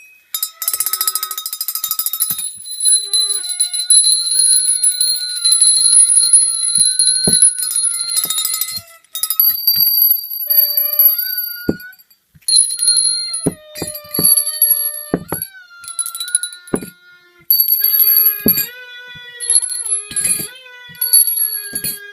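Experimental music of many bells ringing in a dense, high jangle, over held wind-instrument notes that bend and waver in pitch. The playing stops and starts abruptly several times.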